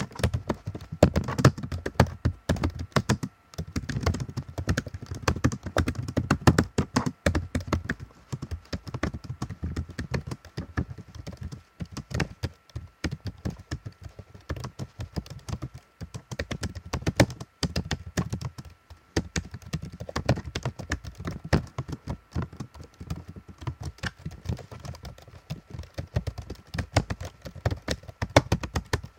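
Computer keyboard typing: rapid, irregular key clicks in fast runs, with short pauses now and then.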